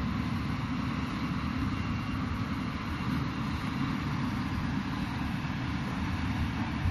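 Steady low rumble with a fainter hiss above it and no separate events.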